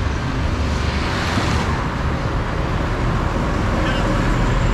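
Road traffic noise on a multi-lane highway: a steady rush of vehicles passing, a little brighter in the first couple of seconds.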